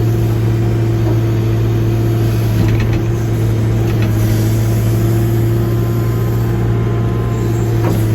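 John Deere backhoe's diesel engine running at a steady speed, with a few faint knocks over it.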